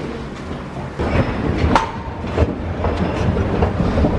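Metal moving walkway running with a low rumble and irregular clacks, with footsteps on its ridged metal plates; it gets louder from about a second in.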